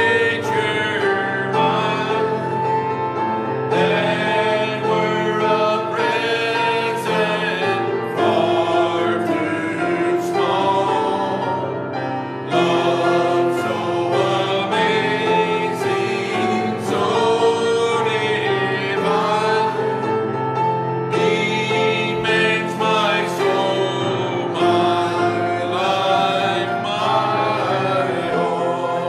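Gospel hymn sung by a man into a handheld microphone over steady musical accompaniment, with other voices joining in.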